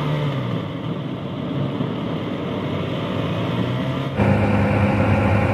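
Motor rickshaw engine running as the vehicle drives along, heard from inside the cabin with road noise. Its note drops a little about half a second in, and the sound steps suddenly louder about four seconds in.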